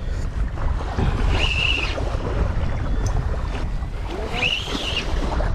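Wind buffeting the microphone over small waves lapping at the shore, with two brief high-pitched tones about a second and a half and four and a half seconds in.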